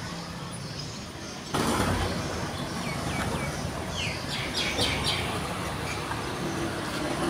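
Birds chirping, a few short falling chirps over a rushing outdoor background noise that gets suddenly louder about a second and a half in.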